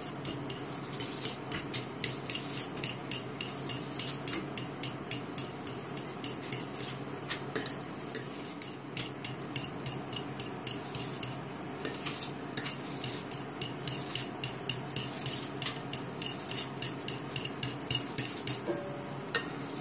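Metal fork beating egg yolks in an ovenproof bowl: a quick, steady run of clicks as the fork strikes the bowl, several a second, over the wet stirring of the yolks.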